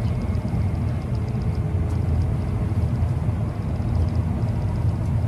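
Electric train running, heard from inside the carriage: a steady low rumble of wheels on rails.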